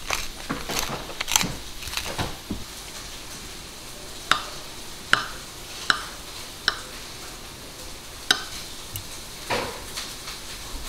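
A wooden pepper grinder crunches out pepper in quick crackly clicks for the first couple of seconds. Then a fork and a metal cheese knife cut through a soft cabbage roll, their tips clicking sharply against the ceramic plate about five times, with a short scrape near the end.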